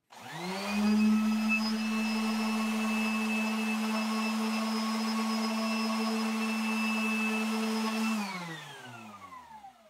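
Electric random orbit sander switched on and spinning up, then running with a steady whine for about seven seconds while its 220-grit pad is held against the edge of a steel lawnmower blade to sharpen it. It is then switched off and winds down with a falling pitch.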